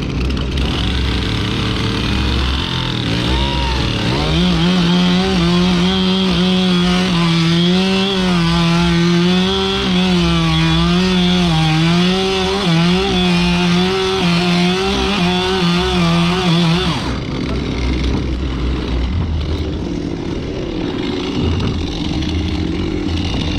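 Chainsaw at high revs cutting the head off a timber pile, its pitch dipping and recovering under load. It cuts through for about thirteen seconds from roughly four seconds in, then stops suddenly. A low engine drone runs underneath.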